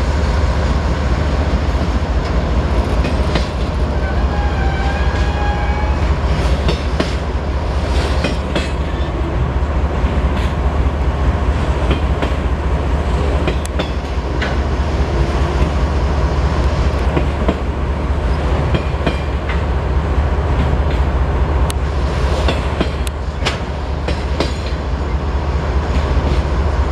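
Freight train rolling past at track level: a steady low rumble with the irregular clicks and clacks of wheels crossing rail joints, and a brief faint wheel squeal about five seconds in.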